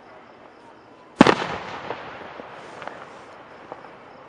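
A fireworks shell bursting: one sharp, loud boom about a second in that trails off over about a second, followed by a few faint pops.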